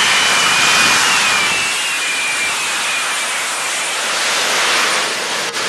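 Small JetCat turbines of a Lazareth flying motorcycle running at hovering power: a loud, steady rushing jet noise with a faint high whine that slides slightly lower in the first couple of seconds. A short click sounds near the end.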